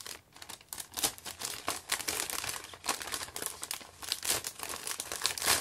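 Clear plastic bag crinkling as a paperback booklet is handled and slid out of it: irregular crackles throughout, the loudest near the end.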